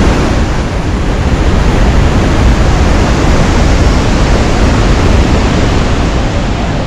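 Athirappilly waterfall in heavy monsoon flow: a loud, steady rushing of falling water with no let-up.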